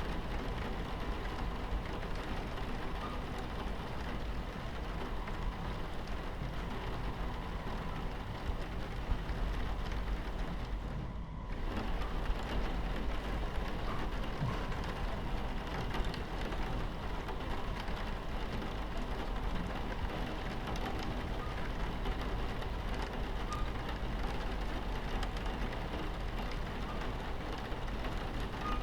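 Steady rain against a train window over the low rumble of a train running on its tracks. The rain hiss drops out for a split second about eleven seconds in.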